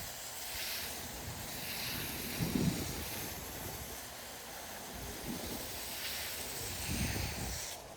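Water spraying steadily from a garden hose onto plants and soil, with a few low bumps of wind on the microphone.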